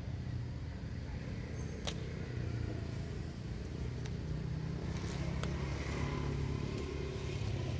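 Low, steady hum of a motor vehicle engine running, with a few sharp clicks over it.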